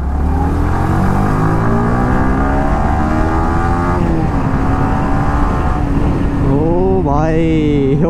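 Sport motorcycle engine accelerating through the gears: the revs climb for about four seconds, drop at a gear change, then climb again and settle, over a low wind rumble. A man's voice starts near the end.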